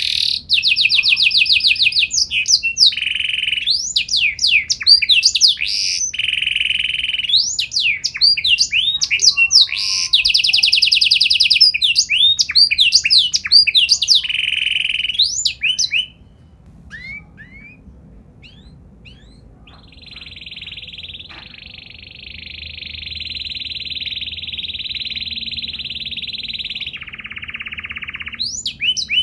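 Domestic canary singing: fast trills and rapid sweeping whistled notes for about half the time, then a short lull with a few faint notes. After that comes one long, steady rolling trill that steps down in pitch near the end.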